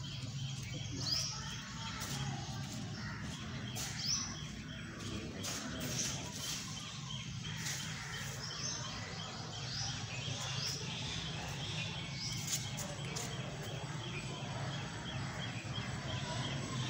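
Birds chirping, short rising chirps every second or two, over a steady low hum.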